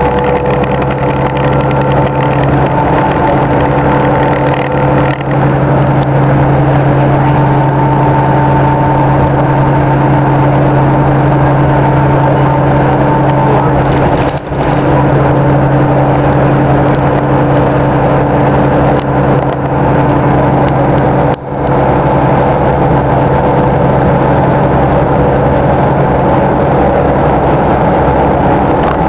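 City bus engine running under way, heard from inside the moving bus: a steady drone with a few held hum tones over road and cabin noise, dipping briefly twice.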